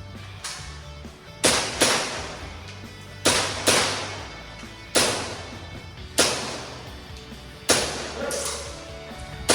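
Gas blowback airsoft pistol firing about ten sharp shots, several in quick pairs, each crack trailing off in a short ring.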